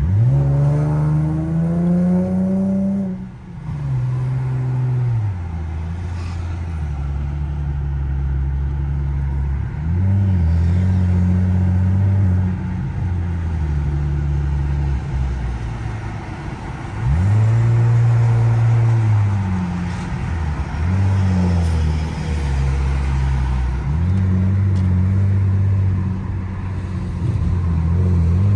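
Car engine and exhaust, fitted with an added second resonator, accelerating in several pulls: the pitch climbs during each pull and drops back at the shifts, with steadier stretches of cruising between.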